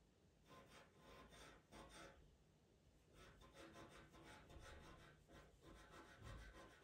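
Faint scratching of a pastel pencil on Pastelmat paper in quick, repeated short strokes, with a brief pause a couple of seconds in and a soft low bump near the end.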